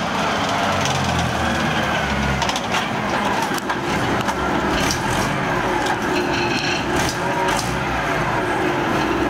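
Alvis Striker tracked armoured vehicle driving up close, its engine running and its steel tracks clattering.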